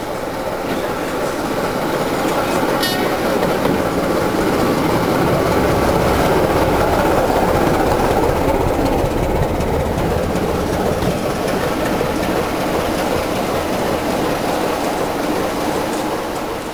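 Class 25 diesel locomotive's Sulzer engine running close alongside, heard from a passing train's open window over the clatter of wheels on rail joints. The sound swells to its loudest around the middle as the locomotive goes by, then eases off.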